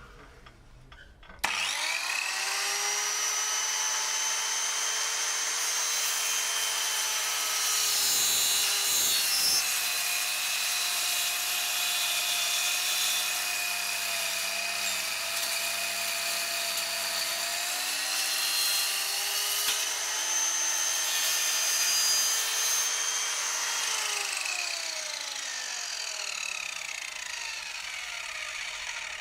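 Electric circular saw starting up about a second and a half in, its motor whine rising to speed. It then cuts into a figure: the pitch sags under the load for several seconds, climbs back, and near the end falls away steadily as the blade spins down.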